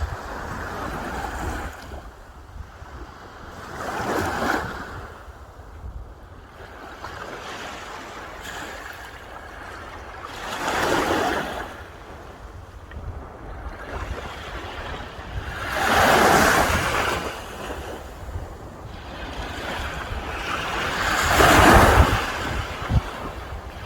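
Sea waves breaking on the shore, four swelling washes of surf about five to six seconds apart, the last the loudest, with wind rumbling on the microphone underneath.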